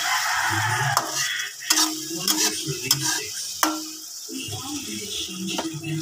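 A metal spatula stirring and scraping tomatoes and onions as they sauté in hot oil in a pan. The sizzle is loudest in the first second, and sharp clinks of the spatula against the pan recur throughout.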